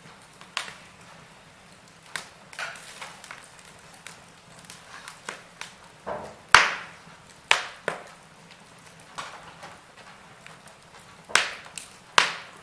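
Wood fire in a fireplace crackling, with irregular sharp pops over a faint hiss; the loudest pop comes about halfway in and two more strong ones near the end.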